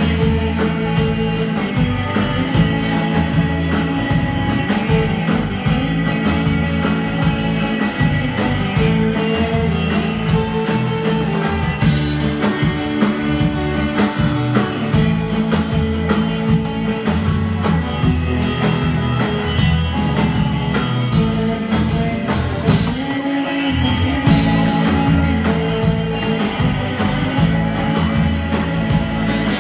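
Live rock band playing: electric guitars over a drum kit with steady drum hits. The band stops for a short break about three-quarters of the way through, then comes back in.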